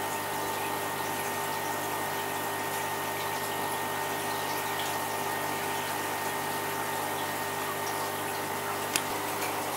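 Steady hum of an aquarium pump with a hiss over it, unchanging throughout, and a single sharp click near the end.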